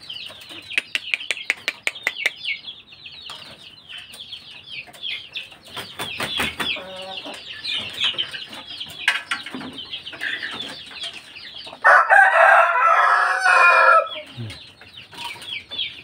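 A rooster crows once, loud, for about two seconds near the end, over constant high peeping of chicks and clucking of chickens. A run of sharp clicks comes in the first few seconds.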